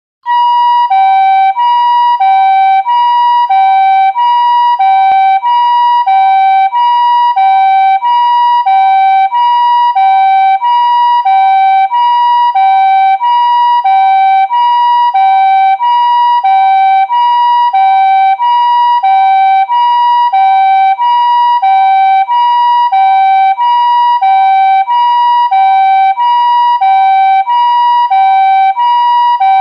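Japanese ambulance two-tone siren sounding its "pee-po" call: a high tone and a lower tone alternate evenly, about one high-low pair every 1.2 seconds, at a steady, loud level.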